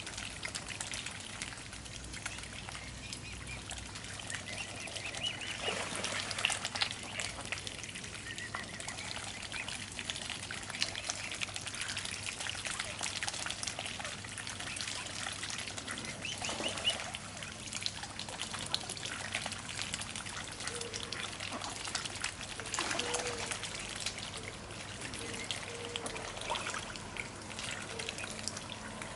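Mute swan dabbling food pellets from a floating feeding ring: its bill splashes and sucks at the water in a continuous run of small clicks and trickles.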